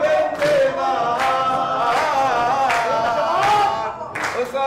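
A man singing a Gulf Arabic song in a wavering, ornamented voice, with hand claps keeping an even beat about every three quarters of a second.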